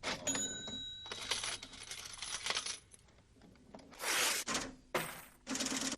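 Coins clattering and ringing, in a first run of clinks and rattles, then a quieter gap, then several short loud bursts of jingling from about four seconds in.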